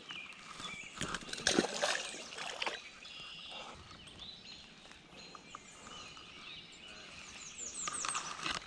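Small songbirds singing and chirping, with a run of quick, high, downward-sweeping calls near the end. A few louder noisy bursts come between about one and three seconds in.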